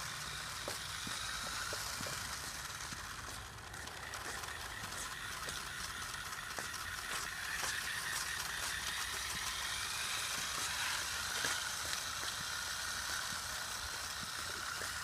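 Remote-control toy car's small electric motor whining steadily as it drives along the road, with wheel noise and scattered small clicks.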